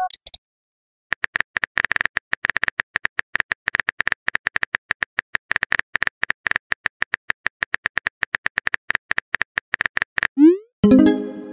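A texting app's keyboard typing sound effect: a fast, dense run of clicks. It stops near the end, followed by a short rising swoop and a chiming message tone as a new text is sent.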